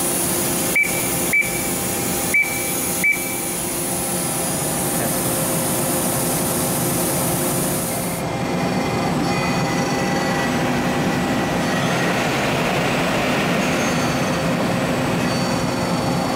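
Mazak Super Quick Turn 18M Mark II CNC lathe running with a steady mechanical hum, with four sharp metallic clicks, each with a brief ring, in the first three seconds. A high hiss cuts off about eight seconds in, and the spindle's whir then grows louder as the chuck turns.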